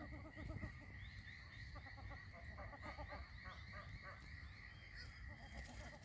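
A flock of Australian wood ducks calling faintly, with short repeated notes in clusters. A steady high-pitched hum runs underneath.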